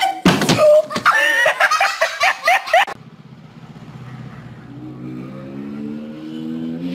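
Loud laughter for about three seconds, cut off abruptly. A motorcycle engine follows, speeding up, its pitch rising and growing louder toward the end.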